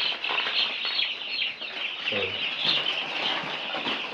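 Broiler chicks in a brooder peeping constantly, many high chirps overlapping.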